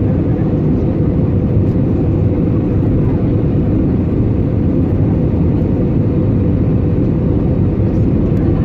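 Cabin noise inside an Airbus A320neo airliner during its descent: a steady low rumble of airflow and engines, with a faint constant hum on top.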